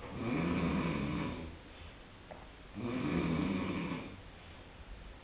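Bosch SNV82155 machine making a rhythmic snoring noise: two drawn-out buzzy, grating passes about three seconds apart, each lasting about a second and a half, with quieter gaps between.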